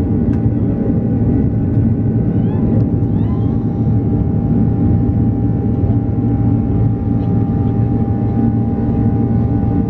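Steady cabin noise inside an Airbus A330-300 with Rolls-Royce Trent 772B engines: an even engine and airflow rumble with a steady hum and a couple of constant tones.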